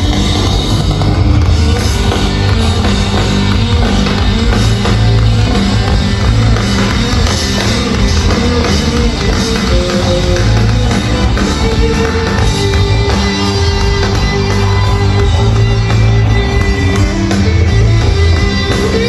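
Live rock band playing loud amplified music led by guitars over heavy bass.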